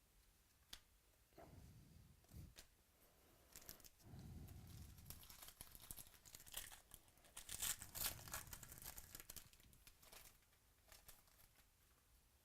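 Faint rustling, crinkling and light clicks of trading cards and their packaging being handled, busiest from about four to nine seconds in.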